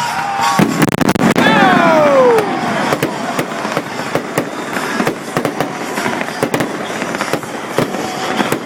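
Aerial fireworks going off: a rapid string of bangs and crackles, with a falling whistle about a second in.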